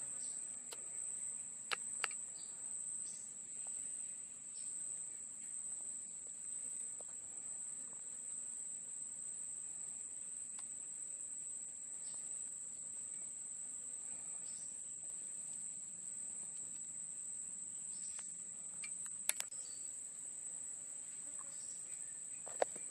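A steady, unbroken high-pitched drone of chirring insects, cricket-like, with a few sharp clicks about two seconds in, around nineteen seconds and just before the end.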